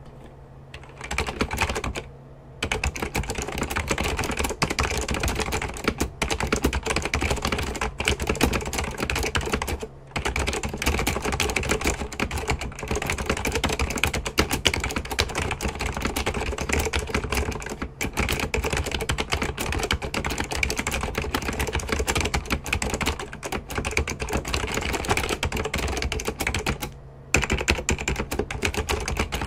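Rapid, continuous clicking and tapping, broken by short pauses about two seconds in, around ten seconds and near the end, over a steady low hum.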